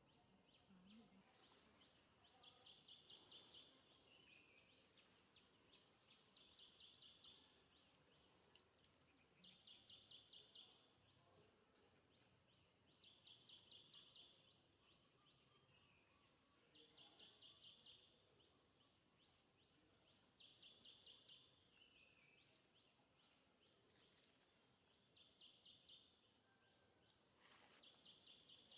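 Faint, repeated trilled bird call: a rapid run of high chirps lasting about a second, coming back every three to four seconds, some runs ending in a short falling note, over a low outdoor hiss.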